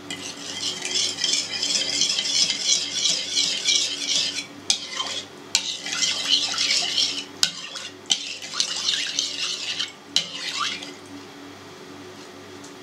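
A metal spoon stirring a thin liquid in a plastic mixing bowl, scraping and swishing in three spells, with a few clicks of the spoon against the bowl between them. Salt is being stirred in to dissolve it in a yeast starter.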